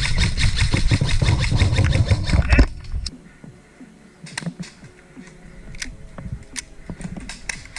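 Loud rumbling rush of movement and wind on a body-worn camera microphone with quick, rapidly repeated clicks and rattles, as the player runs; it drops off sharply about two and a half seconds in. After that it is much quieter, with scattered sharp clicks.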